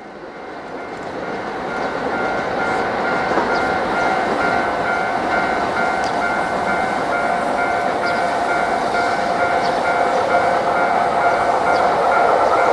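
Japanese level crossing warning bell ringing in a steady, repeating pattern. Behind it the running noise of the approaching 211 series electric train grows louder.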